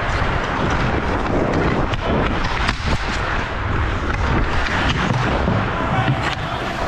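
Steady wind rumble on a helmet-mounted action camera's microphone as a hockey player skates fast, with skate blades scraping the ice and a few sharp clacks of stick on puck.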